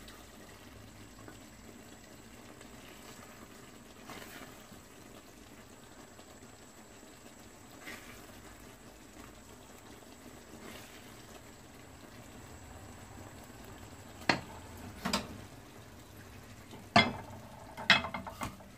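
A wooden spoon scooping thick curry from a pot into a small glass bowl, over a faint steady simmering hiss. Four sharp spoon knocks near the end are the loudest sounds.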